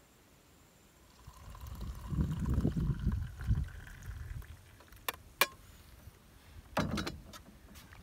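Liquid poured from a stainless steel French press into an enamel mug, its pitch rising as the mug fills. After the pour, a few sharp metallic clinks and a knock as the press is set down in the canoe.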